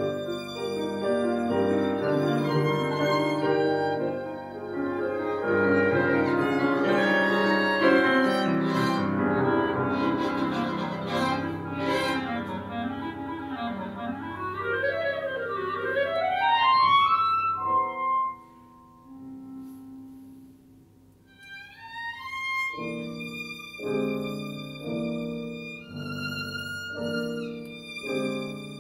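A chamber trio of violin, clarinet and piano playing classical music. A loud, busy passage ends about 17 seconds in with a fast rising run, then comes a brief hush. After it a quieter passage of evenly repeated chords under held high notes.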